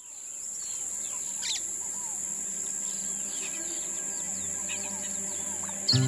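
Birds chirping and calling in short whistles and sweeping notes, over a steady high-pitched insect drone, fading in at the start; music comes in near the end.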